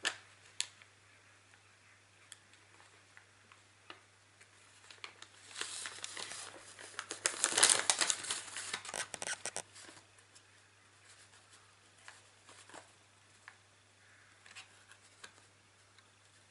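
Paper rustling and crinkling as a paper craft fish is handled while string is threaded through it and knotted, with scattered light taps. The rustling is loudest and densest for several seconds around the middle.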